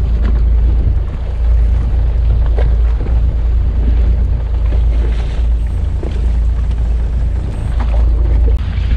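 Steady low rumble of wind on the microphone, over the wash of choppy sea water along a small fishing boat's hull.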